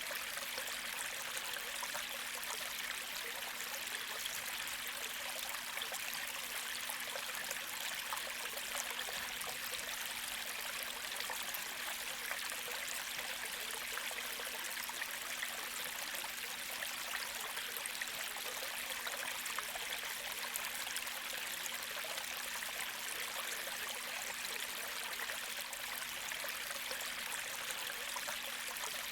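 Gentle creek flowing: a steady, even rush of running water that never lets up.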